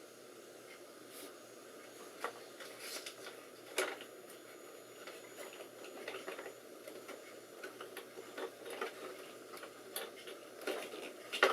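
Scattered light clicks, taps and handling noises of hands working on desktop computer hardware, irregular and growing busier in the second half, over a faint steady hum.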